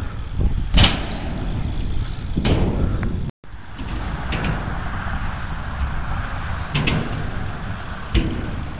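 BMX bike riding on skatepark ramps: a steady rumble of tyres rolling on the ramps with wind on the microphone, broken by a few sharp knocks and clatters as the bike lands.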